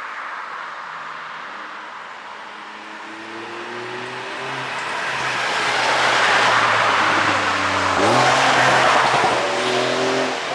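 Porsche 911 (992) Carrera S twin-turbo flat-six running hard with its exhaust flaps held fully open by an ECU tune. The engine note builds and grows louder over several seconds, breaks briefly about eight seconds in, then carries on loud.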